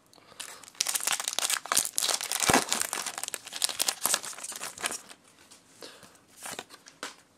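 Foil wrapper of a Pokémon Crimson Invasion booster pack being torn open and crinkled, a dense crackling from about a second in that lasts a few seconds. It is followed by a few softer rustles as the cards inside are handled.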